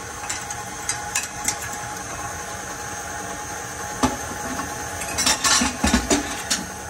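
KitchenAid Artisan stand mixer running steadily, its beater mixing a pie batter of butter, sugar, cream and eggs in the steel bowl. A few sharp clicks about a second in, a knock a little later, and a burst of clatter of a dish and fork near the end.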